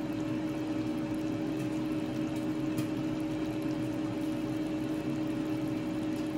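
Bok choy and pork in broth simmering in a wide pan, with a steady hum under the bubbling.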